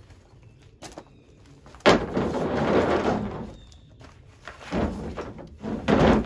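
Folding camp cot with a metal frame being loaded into a pickup truck bed: a sharp knock about two seconds in, then a scraping slide of a second and a half, and more bumps and knocks near the end as it is pushed further in.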